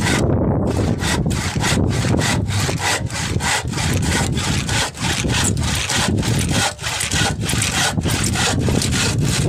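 Carpenter's handsaw cutting through a rough wooden beam in quick, even back-and-forth strokes. The saw is dull.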